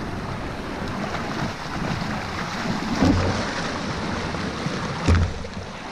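River rapids rushing steadily around boulders, with two short low thumps, about three and five seconds in.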